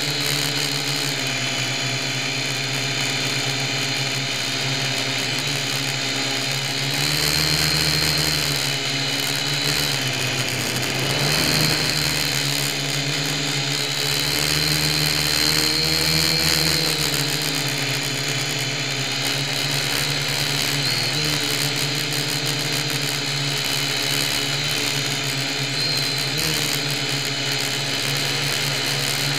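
Syma X1 toy quadcopter's four small electric motors and propellers whining steadily, heard close up through the camera mounted on its frame. The pitch rises and falls several times as the motors speed up and slow down, and the sound grows a little louder with each rise.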